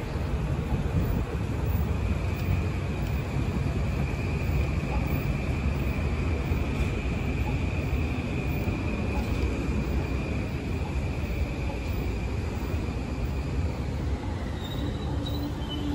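Electric passenger train running through the station: a steady low rumble with an even high whine that fades out near the end.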